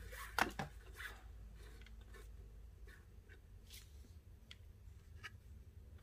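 Paracord being handled and pulled through a knot by hand: soft, scattered rustles and brushing strokes of cord against cord and fingers, the loudest about half a second in.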